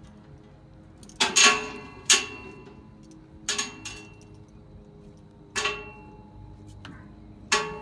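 About six sharp metal-on-metal clanks at irregular intervals, each followed by a brief ring of steel, as rigging and steel parts are handled around a trailer that is being readied to be lowered by forklift.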